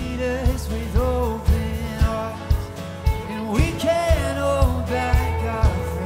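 Live worship band playing: a man sings lead over acoustic guitar, electric bass and electric guitar, with a steady drum beat of about two hits a second.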